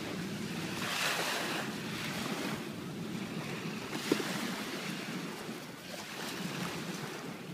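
Small waves washing onto a sandy shore, with wind buffeting the microphone; a short knock about four seconds in.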